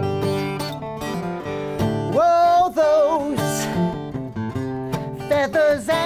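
Acoustic guitar strumming with a man singing over it. A held, wavering sung note comes about two seconds in, and another sung phrase near the end.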